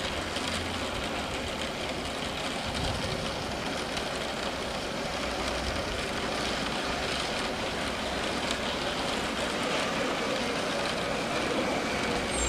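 Steady mechanical drone of an engine, slowly growing louder, with a faint steady hum through it.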